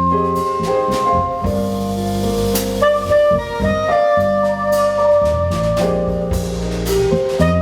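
Small jazz band playing live: a soprano saxophone melody of held notes over keyboards and a drum kit with cymbals.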